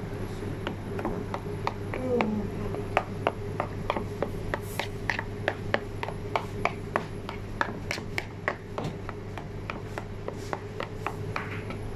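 A spoon stirring thick hummus paste with chopped parsley and garlic in a bowl, scraping and knocking against the bowl in irregular clicks several times a second. A steady low hum runs underneath.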